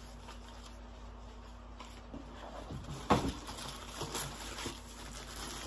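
Packaging being handled and shuffled: rustling and small knocks that start about two seconds in, with one sharp knock a little after three seconds, over a low steady hum.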